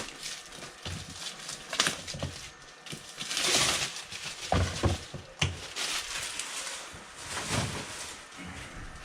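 Packaging being unwrapped by hand: rustling and crinkling with scattered clicks and knocks, and a louder rustle about three and a half seconds in.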